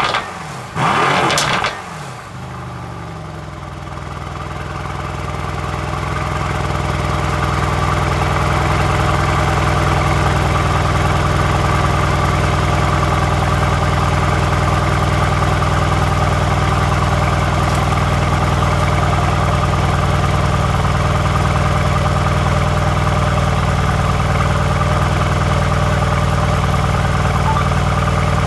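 Mercedes-AMG C63's twin-turbo V8 heard at its exhaust tips: a quick rev that falls away at the very start, then a steady deep idle. The idle grows louder over the next several seconds and then holds even.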